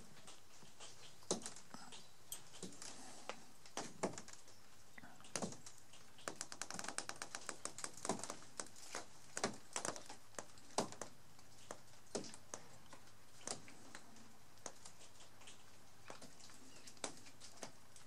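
Irregular sharp taps and clicks, one every second or so, with a quick rattling run of them about six to eight seconds in.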